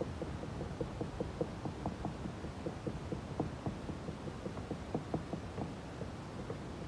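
Wooden stick dabbing and pressing resin-soaked fiberglass mat onto a boat hull: a run of short, soft taps, several a second and uneven, over a steady low hum.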